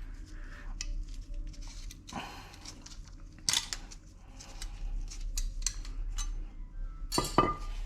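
Light metallic clicks and scraping of a brake pad's steel hardware clip being worked off the caliper bracket, with a sharper click about three and a half seconds in and another near the end.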